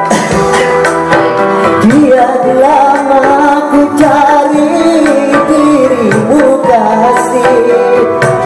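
Dangdut song with gendang hand drums driving the rhythm. A singing voice carries the wavering melody from about two seconds in.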